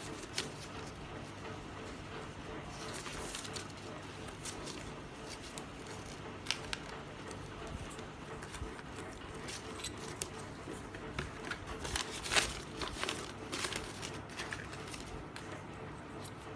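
Scattered light clicks and taps, as of objects being handled, over a steady low hum; the clicks come thickest a little past the middle.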